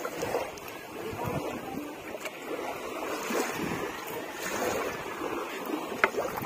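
Wind on the microphone and small waves washing on the shore, with the light rustling and crackling of a nylon gill net being handled as crabs are worked free of it. A single sharper click comes near the end.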